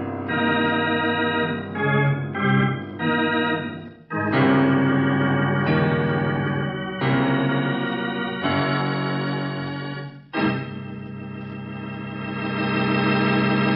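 Organ music bridge: a run of sustained chords that change every second or so, ending on a long held chord from about ten seconds in. It is the musical curtain that closes the act before the station break.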